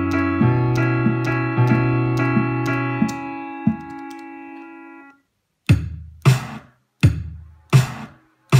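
Teenage Engineering OP-1 synthesizer playing sustained piano-like chords over a bass line and a steady drum beat, fading out and stopping about five seconds in. Then single keys are tapped one at a time, each a short drum hit with a low thump, roughly every half second to second.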